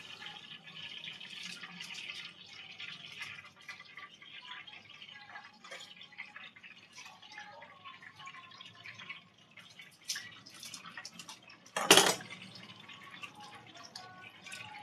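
Kitchen sink sounds: faint water dripping and light clicks and clatter of hands working, with one sharp knock about twelve seconds in.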